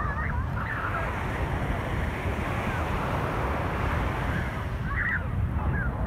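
Surf washing up on a sandy beach, with wind buffeting the microphone as a steady low rumble. A few short, high wavering calls sound near the start and again about five seconds in.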